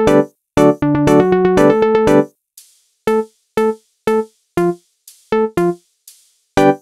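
Synth-keyboard music from an original song. Sustained electric-piano-like chords for about two seconds, then short detached notes about twice a second with light ticks between them, and fuller playing again near the end.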